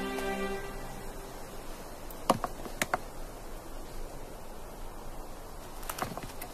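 Two sharp knocks about two and a half seconds in, and a few fainter clicks near the end, against a quiet background: Alpine ibex bucks knocking horns as they spar.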